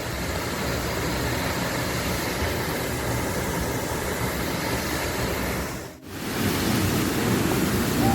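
Steady rushing noise of a waterfall, water pouring and splashing into a pool, with a brief dropout about six seconds in.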